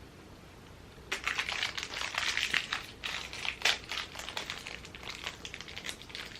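Mystery pin box packaging being handled and torn open, crinkling and rustling with many small crackles, starting about a second in.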